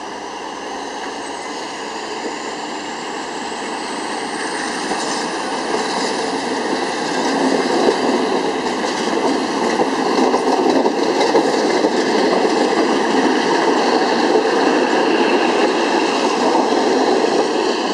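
Passenger coaches of a departing train rolling past close by, the wheels rumbling and clicking on the rails and growing steadily louder as the train picks up speed. A faint high whine rises slowly in pitch through the first part.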